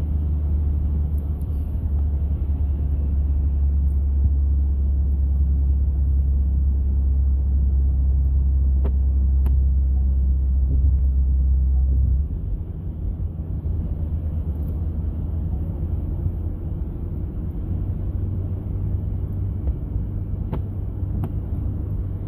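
A car driving on a highway: a steady low rumble of road and engine noise, which drops in level about twelve seconds in.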